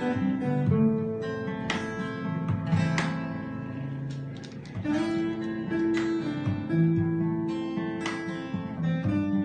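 Acoustic guitar music, strummed and plucked chords with held notes.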